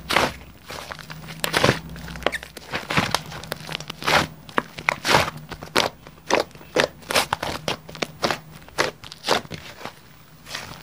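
Hands squishing, poking and stretching mixed avalanche-style slime, giving irregular crackling pops of trapped air bubbles, a few a second.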